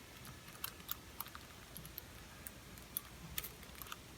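Irregular small clicks and rattles of plastic beads and rings as a green-cheeked conure grabs and chews at a plastic toy with its beak.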